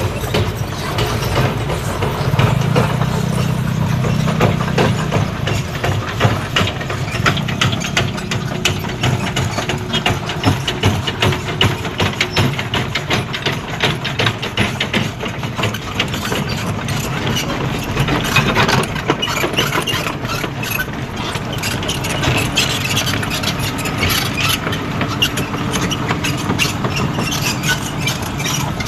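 Komatsu PC210 hydraulic excavator's diesel engine idling close by, with a dense rapid clatter over its steady running. The low engine note is heavier for a few seconds near the start.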